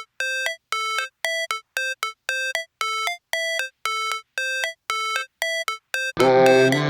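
Background electronic music: a short synth motif of bright, beeping notes repeating about twice a second, then a fuller track with bass comes in near the end.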